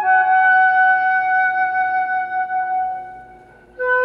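Background music: a flute melody in long held notes, one note fading away near the end before the next one starts.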